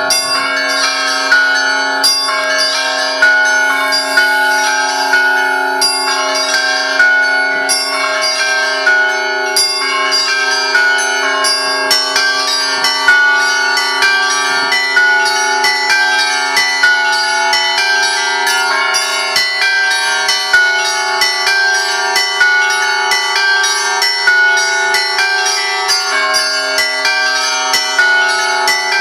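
Russian Orthodox church bells ringing: rapid, continuous strikes on the smaller bells over the lingering hum of larger bells.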